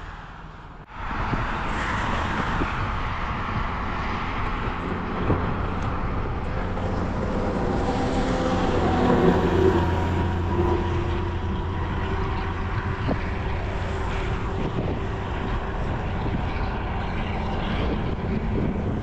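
Highway traffic: motor vehicles passing steadily along the road, with a heavier vehicle's engine swelling to the loudest point about nine seconds in.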